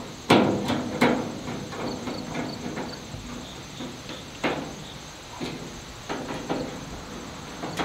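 Sharp metallic clanks and knocks of a steel handle being screwed onto the sheet-metal back of a Pit Boss smoker with a screwdriver; the two loudest come near the start about a second apart, then scattered lighter clicks.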